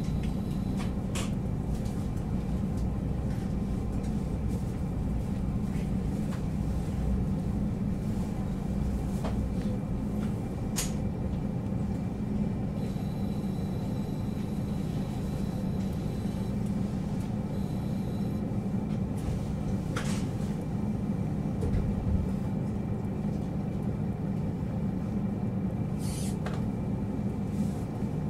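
JR Hokkaido KiHa 40-series diesel railcar heard from on board: a steady diesel engine rumble, with occasional sharp clicks and rattles and a faint high whine for a few seconds in the middle.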